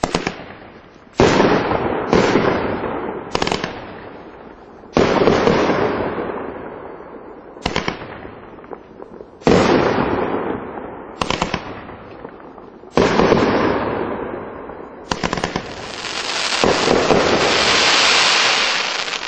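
Winda 'Angry Pandas' 500-gram fireworks cake firing its shots in sequence: about ten sharp reports one to two seconds apart, each trailing off in a fading rush of noise. Over the last three seconds this gives way to a dense, continuous crackle from crackling star bursts.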